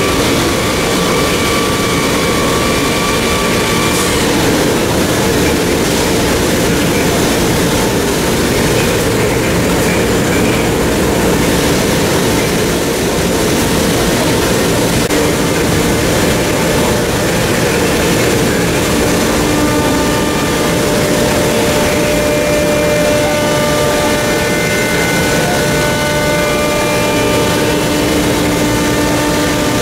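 Steady factory-floor din from running machinery and fans in a woodworking shop, with faint steady whines that come and go.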